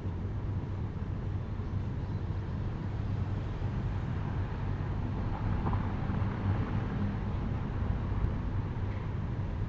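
Steady low rumble of outdoor background noise with a faint hiss, swelling slightly about halfway through; no distinct knocks or bangs.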